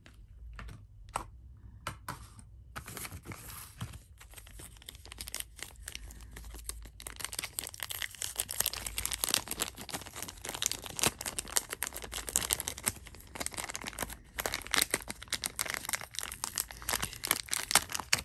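Knife packaging being handled and unwrapped: crinkling and rustling with some tearing. It starts as scattered crackles and becomes a continuous crinkle about halfway through.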